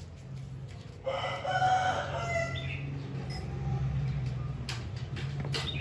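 A rooster crows once, about a second in: a single drawn-out call lasting about a second and a half, over a steady low hum.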